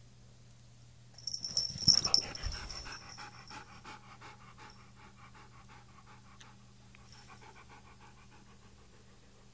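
Siberian husky panting quickly close to the microphone, about five breaths a second, with a pause near the end. It starts after a brief loud burst of thumps and rustling about a second in.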